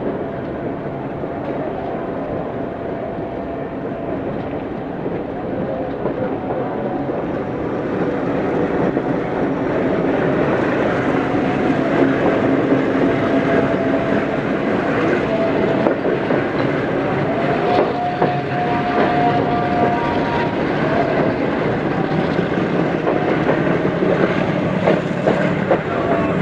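Diesel-hauled passenger express train running by, its wheels clattering over the rail joints, getting louder about eight to twelve seconds in. A brief high squeal rises above the rumble in the middle.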